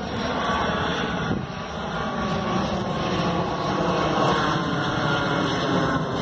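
A jet aircraft flying overhead above low cloud. Its engines make a steady, continuous rumble that grows slightly louder near the end.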